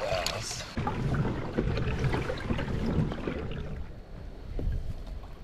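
Kayak paddle working the water for the first second, then an uneven low rumble of wind buffeting the microphone that dies down near the end.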